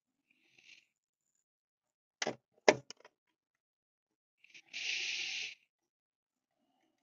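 Hand tools and plastic parts clicking as screws are taken out of the Jeep's headlight surround: a few sharp clicks about two to three seconds in, then a brief scrape of under a second.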